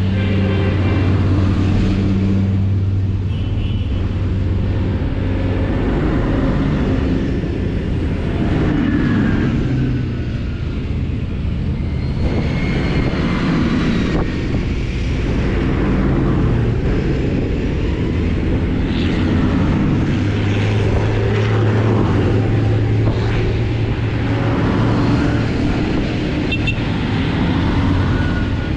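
Large tractors driving past one after another, their diesel engines running with a low hum that swells as each one goes by.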